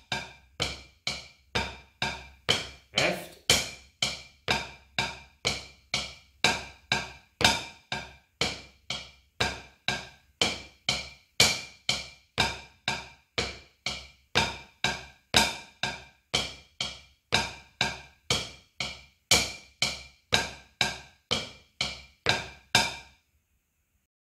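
Drumsticks striking a drum practice pad in a steady stream of even strokes, about two a second, with a louder stroke roughly every four seconds at the start of each measure. It is an eight-measure sticking exercise in which each measure starts with the other hand, and it stops cleanly about 23 seconds in.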